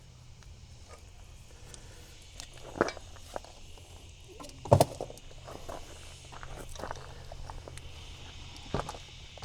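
Footsteps and scattered knocks during work around a backhoe, with three sharper knocks about three seconds in, near five seconds and near the end, over a faint steady low hum.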